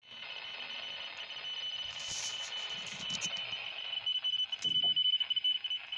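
Satellite signal from Kosmos-2407, received on 149.970 MHz and played through a Baofeng UV-5R handheld radio's speaker: a steady high tone broken by quick short gaps, over radio hiss. It is caught with interference inside the apartment.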